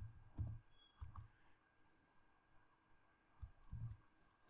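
Faint computer keyboard keystrokes: a few separate, dull taps with pauses between them.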